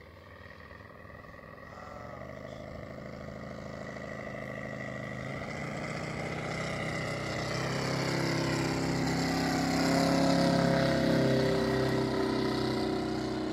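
250 cc Moki radial engine of a large-scale model biplane droning in flight, growing steadily louder as the aircraft flies in towards the listener, loudest about ten seconds in.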